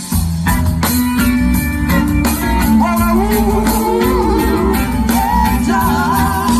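Live reggae band music: a steady bass line under a wavering melody line, with singing.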